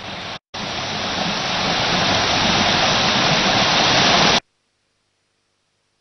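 Steady rushing water of a waterfall, a loud even hiss that drops out for a split second just after it starts, grows a little louder, then cuts off suddenly about four seconds in.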